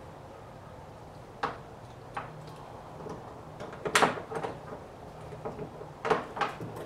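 A handful of sharp clicks and knocks of a kayak motor mount and its strap being handled and seated on the kayak's stern, the loudest about four seconds in. A steady low hum runs underneath.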